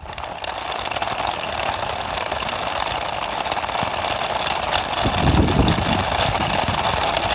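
RC car running steadily, its drive making an even mechanical whirr that starts suddenly. A low rumble joins about five seconds in.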